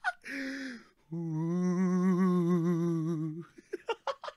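A man's voice holding a long, wavering hummed wail for about two seconds, between bursts of laughter; quick giggling pulses start up again near the end.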